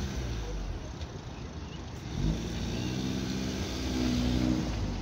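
Ford Focus ST engine pulling away at low speed, with a sudden thump about two seconds in and the engine note then rising as the car accelerates away.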